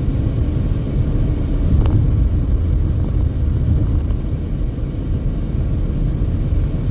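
Steady low rumble of a car driving at speed, road and engine noise.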